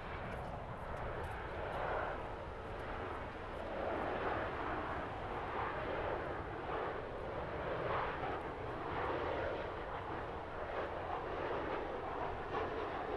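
The CFM56 turbofan engines of a Boeing 737-800 airliner on final approach. They make a steady rushing jet roar that swells and eases in waves.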